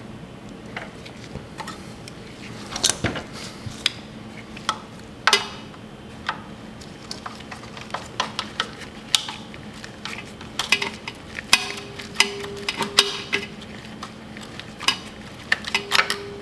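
Irregular metallic clicks and clinks of hand tools and safety wire being worked around a motorcycle's oil filter, dozens of small sharp taps with short pauses between.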